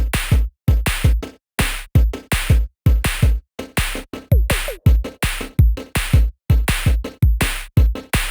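Electronic background music with a steady drum-machine beat: punchy kick and snare hits with deep bass, about two or three a second, in short chopped phrases.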